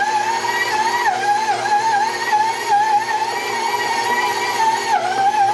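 KitchenAid Professional 5 Plus stand mixer running, kneading pizza dough with its dough hook. The motor gives a steady high whine that sags briefly in pitch now and then as the dough drags on the hook.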